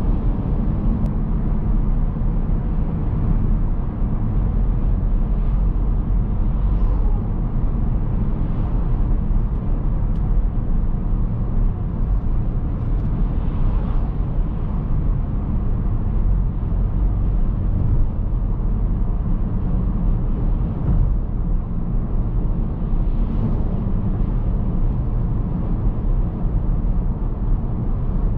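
Steady cabin noise of a 2010 Toyota Prius III hybrid driving at speed: a constant low rumble of road, tyre and engine noise heard from inside the car.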